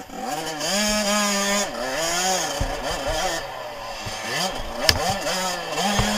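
Suzuki RM85's two-stroke single-cylinder engine revving hard and dropping off again several times as the throttle is worked, its pitch climbing, holding high and falling. A few sharp knocks sound near the end.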